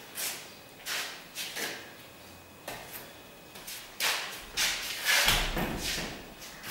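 Marker strokes on a whiteboard, a run of short scratchy sweeps. About four seconds in comes a louder, longer scraping and handling noise with a low rumble under it.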